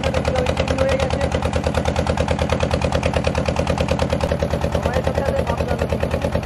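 A boat engine running steadily with a rapid, even chugging.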